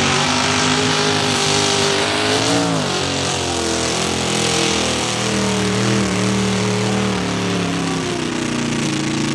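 Square-body Chevy mud truck's engine revving hard and continuously while the truck is bogged down to the hood in a mud hole, the revs dipping and climbing again about two and a half seconds in.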